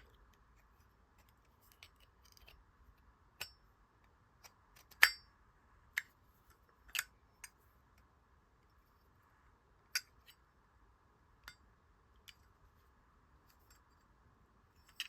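Scattered sharp metallic clicks and taps as a Zippo butane torch insert is pushed into its metal lighter case, the loudest about five seconds in, over a faint steady hum.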